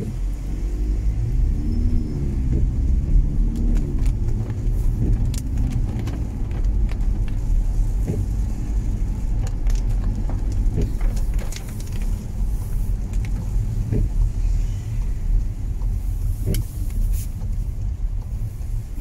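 A car driving on a wet road, heard from inside the cabin: a steady low rumble of engine and tyres. The engine note rises and falls over the first few seconds, and scattered sharp clicks come through.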